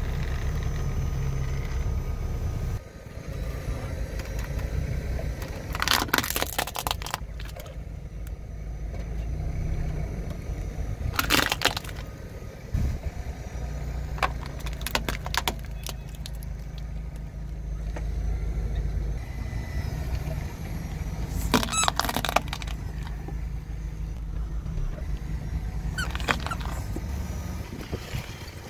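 A car running low and steady as its tyre rolls over plastic toys, with short clusters of cracking and crunching plastic about six, eleven, twenty-two and twenty-six seconds in as the toys break under the wheel.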